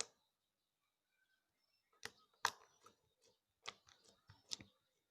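Homemade clicky slime being worked by hand, giving faint, sharp, irregular clicks and pops: one right at the start, then a run of clicks from about two seconds in.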